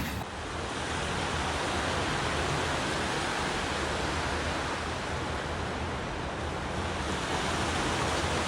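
Steady rushing of sea surf, an even wash of noise that cuts in and out abruptly at edits.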